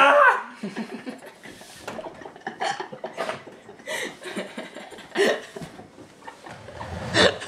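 The tail of a loud vocal outburst breaks off right at the start. Scattered soft laughter and chuckling from a few people follow, with a couple of louder laughs near the end.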